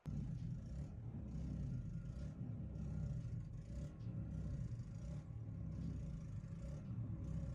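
A steady low rumbling noise with a hiss that swells and fades several times; it starts and cuts off abruptly.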